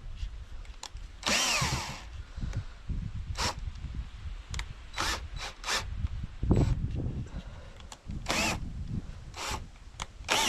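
Power drill run in short bursts, about ten times, a few spinning up and down in pitch, as for driving screws or boring holes in wood. Low knocks of handling run between the bursts.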